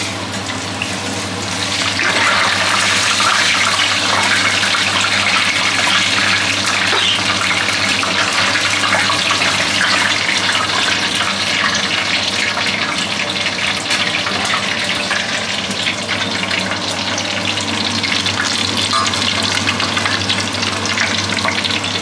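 Potato slices sizzling and crackling in hot frying oil. The sizzle jumps up sharply about two seconds in as the potatoes go into the oil, then holds steady and eases off slightly.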